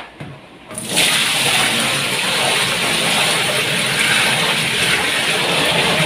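Water pouring into the tub of a single-tub washing machine as it is filled. It is a steady, loud rush that starts suddenly about a second in.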